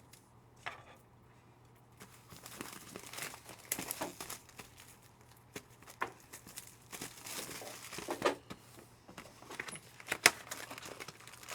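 Trading card packaging, plastic wrap and foil pack wrappers, crinkling and tearing as the next box of packs is opened. It starts about two seconds in, with many small crackles and snaps.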